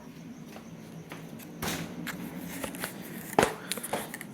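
Footsteps and small knocks from handling things, with one sharp knock about three and a half seconds in.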